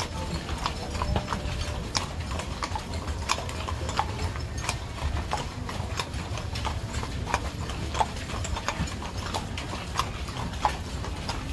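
Horses' hooves clip-clopping in sharp, irregular strikes over a low, steady rumble.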